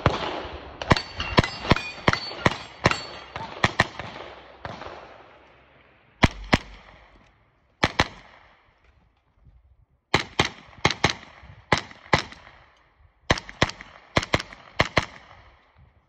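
JP Rifles JP-5 9mm pistol-caliber carbine firing a USPSA stage: strings of rapid shots, many in quick pairs, with short echoes. A dense run of shots in the first four seconds is followed by two lone shots, a gap, then two more fast strings in the last six seconds.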